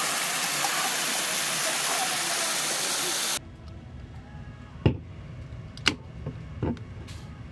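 A steady rushing noise that cuts off abruptly a little over three seconds in, followed by a quieter low rumble with four sharp clicks or taps.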